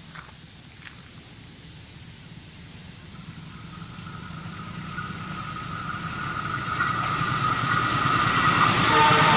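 Approaching Argo Lawu express train, its rumble growing steadily louder, with a steady high whine joining in about three seconds in and strengthening as the train nears.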